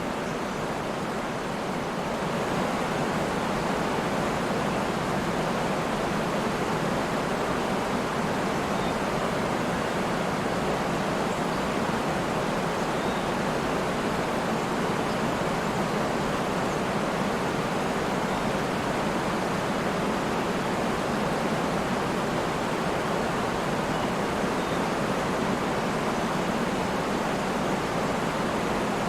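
Waterfall: a steady, unbroken rush of falling water, a little louder from about two seconds in.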